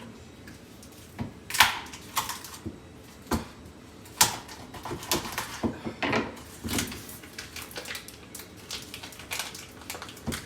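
Irregular clicks, knocks and rustles of things being handled in a kitchen, with a few sharper knocks, the loudest about four seconds in.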